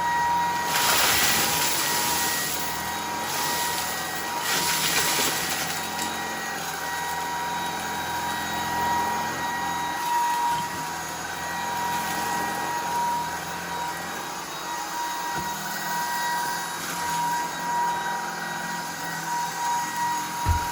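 Shark IZ320UK cordless stick vacuum running on its high setting, a steady motor whine with a rushing airflow. Two louder rushing surges come about one second and about five seconds in as it sucks up debris.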